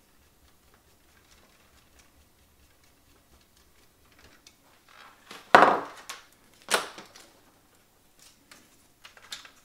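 Small screwdriver working screws on a cassette-deck tape mechanism, with faint small clicks and ticks, then two loud hard knocks about a second apart and a few lighter clicks near the end.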